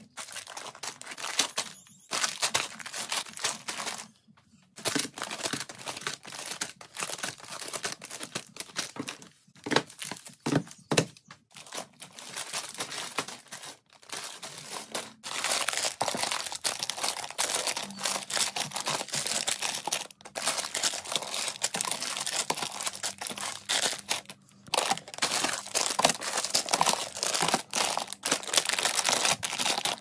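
Plastic snack and baking-chip bags crinkling and rustling in bursts as they are handled and stood one by one in a plastic storage bin, with short pauses between.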